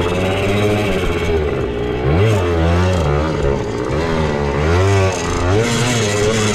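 Suzuki JR80 two-stroke single-cylinder pit bike engine being ridden, revving up and down with the throttle. Its pitch climbs sharply about two seconds in and again near five seconds, easing off in between.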